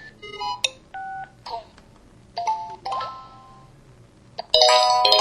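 Samsung SCH-E560 mobile phone playing its built-in sound effects: a string of short electronic beeps and chime-like tones with pauses between them, then a louder chord of several held tones near the end.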